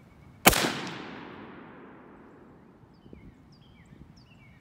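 A single rifle shot from an M16A2-pattern Colt AR-15A2 in 5.56 mm, about half a second in, with a long echo fading away over the next two seconds.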